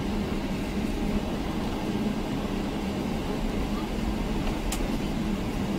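Cabin noise of a Boeing 777-300ER taxiing, heard from inside the cabin: a steady rumble with a low hum from its GE90-115B engines. A faint click comes near the end.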